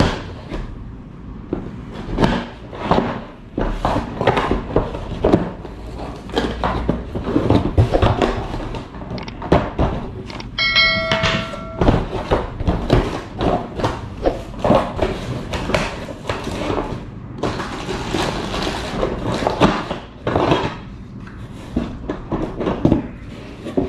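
A single-pole clothes rack being unpacked from its box by hand: many irregular knocks, thunks and handling rustles. A brief ringing tone comes about eleven seconds in.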